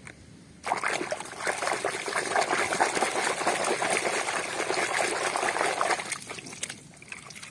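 Water sloshing and splashing in a basin as a hand scrubs a mud-covered plastic toy vehicle under the water. It starts about a second in and dies down near the end.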